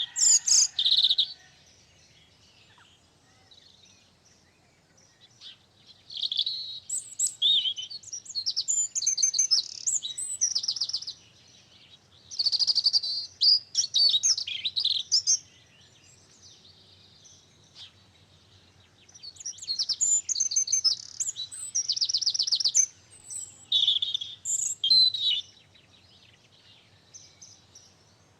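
A small songbird singing: loud, high-pitched phrases of rapid trills and chirps, each a couple of seconds long, repeated with pauses of a few seconds between them.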